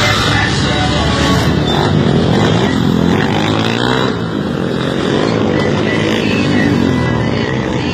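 Motorcycle engine revving up and down, loud and continuous.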